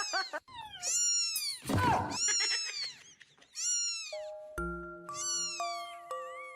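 A cat meowing repeatedly, about five calls, each falling in pitch. A simple plinking melody of background music comes in about four seconds in.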